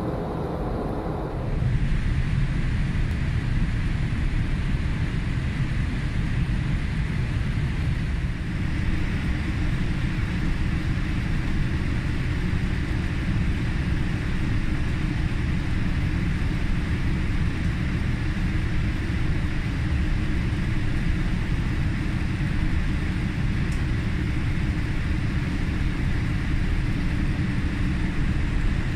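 Steady cabin noise of a Boeing 787-8 airliner on final approach: engine and airflow noise, heaviest in the low end, growing a little louder about a second and a half in.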